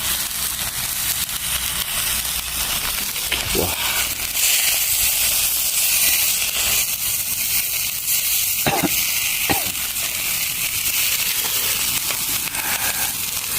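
A seasoned dish frying in hot oil, a steady loud sizzle with crackling and scattered pops.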